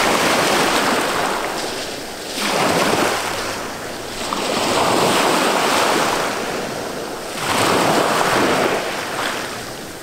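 Small waves breaking and washing up over a pebble beach. The surf noise swells and fades four times, about every two and a half seconds.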